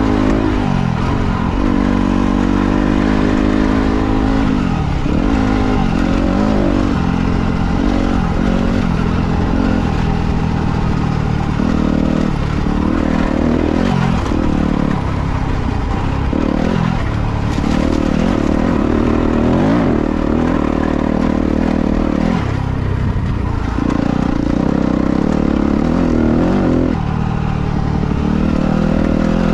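Dirt bike engine running hard as it is ridden, its pitch rising and falling over and over with the throttle and gear changes.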